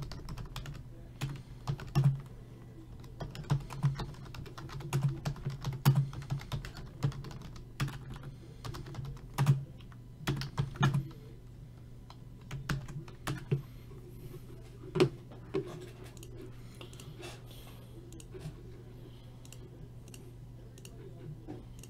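Typing on a computer keyboard: irregular runs of keystroke clicks, dense for the first half and thinning out after, over a steady low hum.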